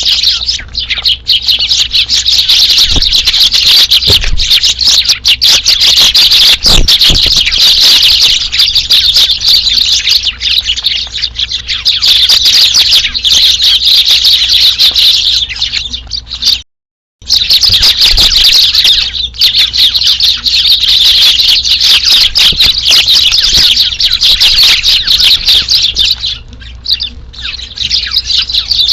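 A flock of Eurasian tree sparrows chirping loudly and without pause, many calls overlapping, with the sound cutting out completely for a moment about halfway through.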